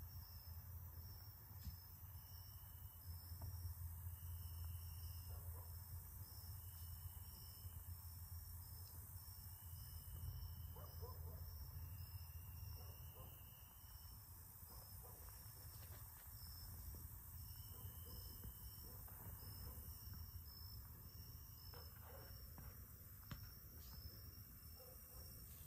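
Faint chorus of insects: crickets or katydids, a high chirp repeating about twice a second and a lower trilling note that comes and goes every second or two, over a low steady rumble.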